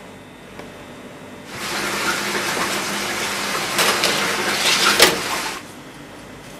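A loud rushing hiss that lasts about four seconds, with two metal knocks near the end of it, the second the louder, as a baking tray of scones is slid onto an oven rack. The hiss cuts off just after the second knock.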